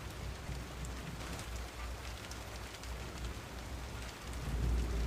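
Steady rain falling, with scattered drop ticks. A low rumble of thunder builds in about four seconds in.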